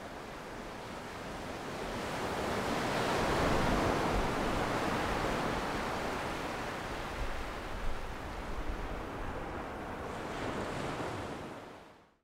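Ocean surf washing in, swelling to its loudest about four seconds in, then easing off and fading out near the end.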